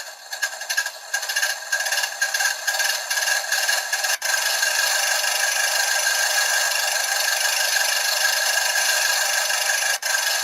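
Recorded tank-engine sound effect played through a model's tiny built-in speaker, thin and without bass: sputtering and uneven as it starts, then settling into a steady rattling run about two seconds in, cut off for an instant twice as the sample loops.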